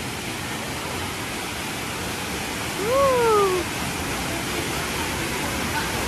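Steady rush of a waterfall pouring into a shallow rocky pool. About three seconds in, a short voice call rises and then falls in pitch.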